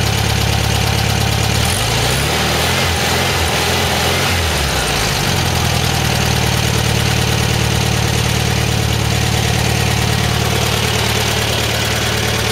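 1974 Volkswagen Beetle's air-cooled flat-four idling on a freshly rebuilt 34 PICT carburetor. The idle wavers unevenly for a few seconds about two seconds in, then settles back to a steady idle.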